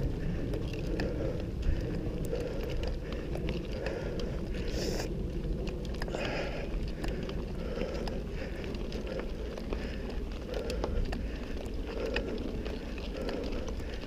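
Mountain bike rolling down a dry dirt singletrack: a steady rumble of tyres and wind on the microphone, with scattered clicks and rattles from the bike over the trail.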